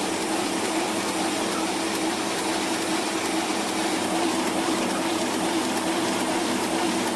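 Banknote sheet-processing machine running, printed sheets moving fast under its guide wheels: a steady machine whir with a constant hum.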